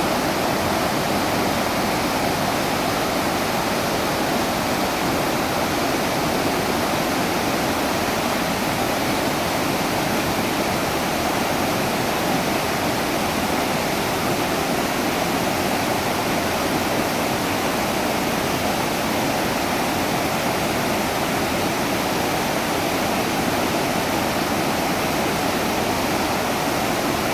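Steady, even rush of river water flowing, unbroken and unchanging.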